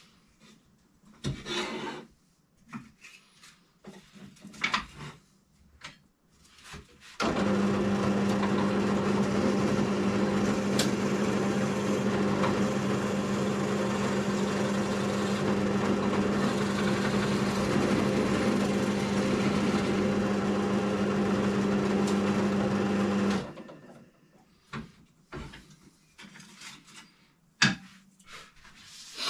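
Drill press motor running steadily for about sixteen seconds with a constant hum, drilling a hole through knife handle scales. Scattered handling clicks and knocks come before it starts and after it stops.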